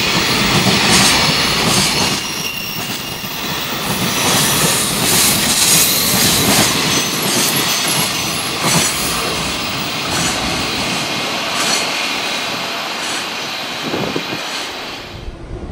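Long container freight train, with flat wagons carrying shipping containers, passing at speed: a loud rolling roar of steel wheels on rail, with repeated clacks as wheelsets cross rail joints and a faint high wheel squeal. The last wagon goes by about eight seconds in, and the noise eases off after it.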